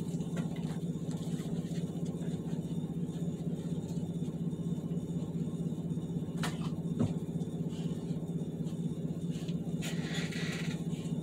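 A steady low hum fills the room throughout, with two short knocks about six and a half and seven seconds in and a brief rustle near the end.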